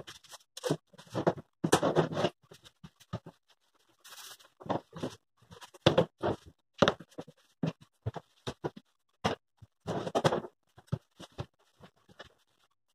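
Kitchen storage canisters and their lids being handled, moved and set down on a countertop: irregular knocks and clunks with a few short scrapes.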